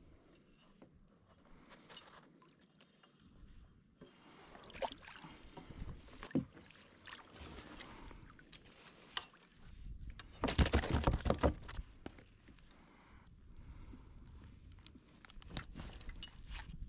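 A fish being landed into a kayak with a landing net: splashing as the net comes out of the water, then rustling of the net and knocks against the plastic hull. About ten seconds in comes a loud burst of rapid knocking and rustling lasting a couple of seconds.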